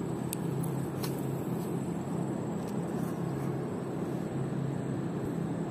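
Steady rushing of a fast, muddy river, with a few light clicks from casting and reeling with a baitcasting reel.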